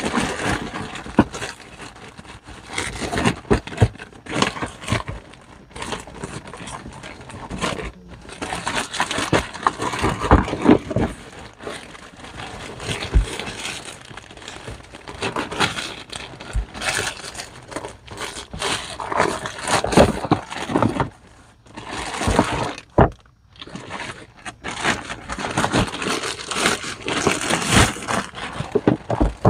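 Plastic poly mailer bag crinkling, rustling and tearing as it is cut and pulled open by hand, in irregular bursts with a few short pauses and scattered clicks.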